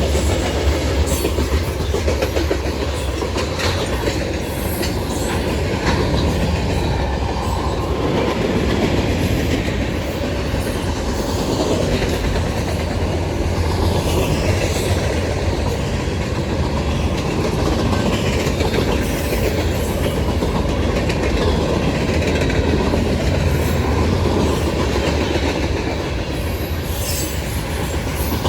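Norfolk Southern freight cars rolling steadily past, wheels clacking over rail joints with a continuous heavy rumble.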